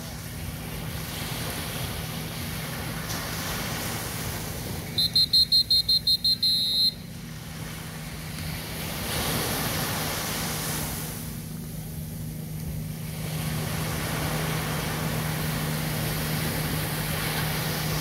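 Small waves breaking and washing up a sandy beach, swelling and ebbing in slow surges over a steady low hum. About five seconds in, a rapid run of about nine loud, high-pitched beeps lasts some two seconds.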